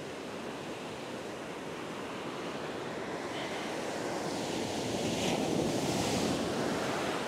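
Ocean surf: waves breaking and washing up the sand, swelling louder about two-thirds of the way through as a wave rushes in.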